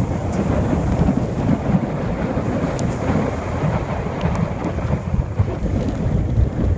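Strong wind buffeting the microphone: a loud, low rumble that rises and falls with the gusts.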